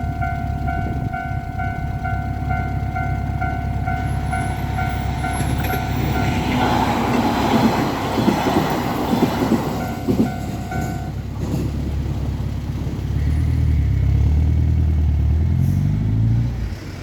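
Japanese level-crossing alarm ringing in a steady repeating ding while a train rushes through the crossing for about four seconds. The alarm stops about eleven seconds in, and a low rumble of road-vehicle engines follows.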